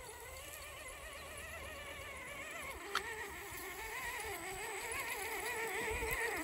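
Electric motor and geartrain of an RC scale trail truck whining as it crawls, the pitch wobbling up and down as the throttle is fed in and out and getting louder as the truck comes closer. A single sharp click about three seconds in.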